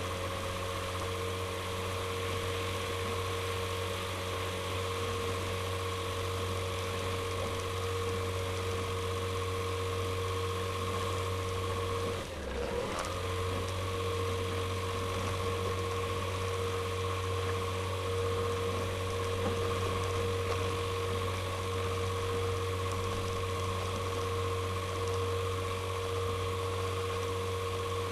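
Avid Flyer light aircraft's engine and propeller running steadily at low power while taxiing: an even drone with higher steady tones on top. The sound dips briefly about halfway through.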